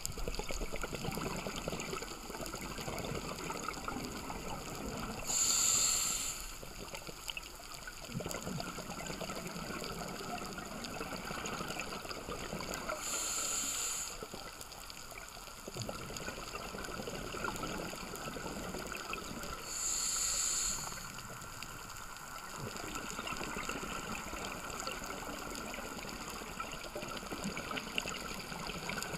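Scuba diver breathing through a regulator, heard underwater: three loud hissing breaths about seven seconds apart, with a steady bubbling, crackling rush of exhaled air between them.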